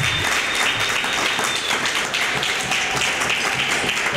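A small audience applauding, steady clapping throughout.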